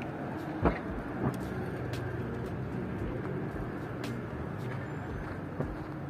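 A motor vehicle's engine running steadily, with a sharp knock about two-thirds of a second in and a softer one just after a second.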